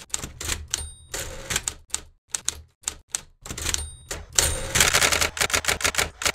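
Typewriter sound effect: irregular clacking keystrokes with a few short high bell dings, and a dense rattling run of keys about three quarters of the way through.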